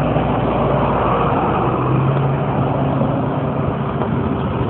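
Road traffic: car engines running with a steady low hum under a constant wash of traffic noise, swelling slightly about a second in.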